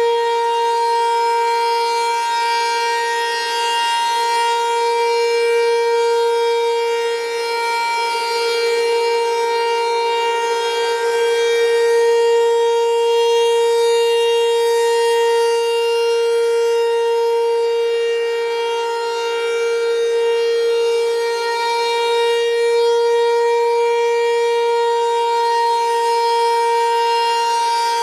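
Federal Signal Equinox electronic outdoor warning siren sounding the full-alert signal, one steady held pitch with no rise or fall. Its loudness swells and fades slowly every several seconds.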